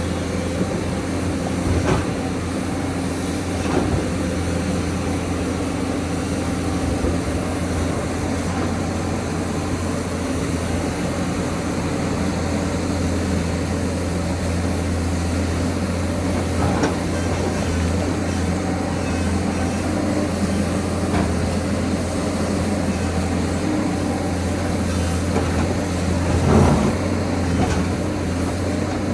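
Excavator's diesel engine running steadily at work, a deep even hum, with a few short knocks and clunks, the loudest near the end.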